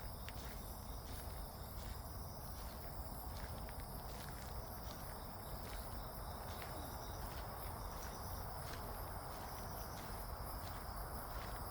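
Footsteps walking at an even pace along a path, over steady faint high-pitched insect chirring and a low rumble.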